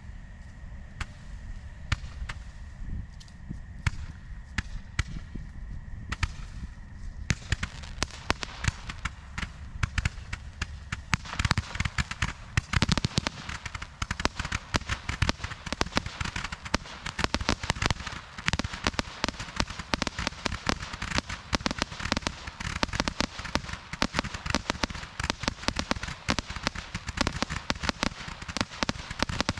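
A 268-shot barrage candle firing. There are a few scattered pops at first, then from about seven seconds in a dense, rapid run of cracking shots that keeps on going.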